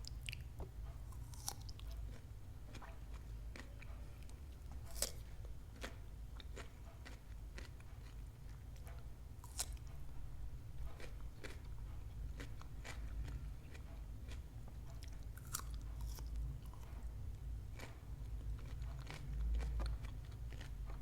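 Chewing and biting of crunchy food, with scattered sharp crunches, the sharpest about five and ten seconds in, over a steady low rumble.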